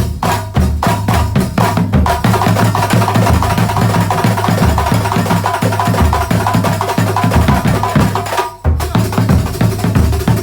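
Terbang frame drums played together in a fast, dense rhythm, with a short break about eight and a half seconds in before the drumming picks up again.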